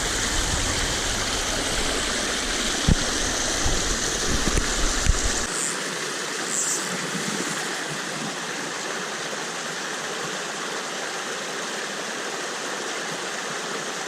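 Running water of a stream rushing steadily, with a few low thumps in the first five seconds.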